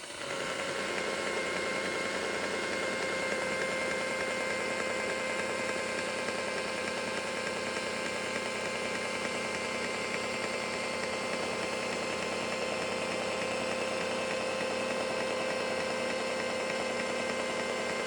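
Makita rotary polisher with a wool pad running steadily at its lowest speed setting, about 600 RPM, buffing cutting compound on sanded gel coat; a steady motor whine that comes up at the start and holds level.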